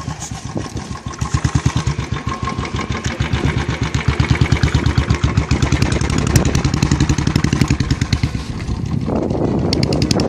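Royal Enfield Bullet single-cylinder engine with a Goldstar aftermarket silencer, running with an even, pulsing exhaust thump. The revs rise over the first few seconds, hold higher, then ease off slightly near the end.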